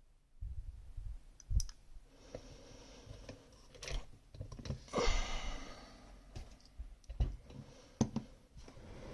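Scattered small clicks and rustling handling noise from the metal parts of a Rosengrens lock being handled as it is taken apart.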